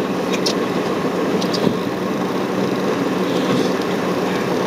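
Boat engine idling steadily under a constant hiss of wind and sea, with two faint short ticks about half a second and a second and a half in.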